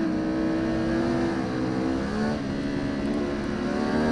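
Ducati Panigale V4 R superbike's V4 engine running at high revs at racing speed, with wind rushing over the onboard camera. The pitch holds steady, dips slightly about halfway through, then holds again.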